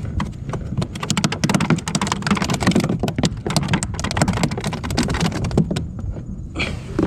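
Rapid, irregular clicking and knocking as a small, freshly caught speckled trout is handled on a kayak. The clatter stops about six seconds in, followed by one more sharp knock near the end.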